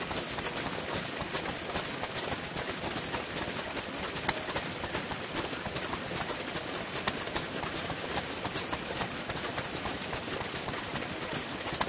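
Several vintage Japanese kerosene stationary engines, an Isami among them, running side by side. Their overlapping exhaust pops and valve clicks make a dense, irregular clatter.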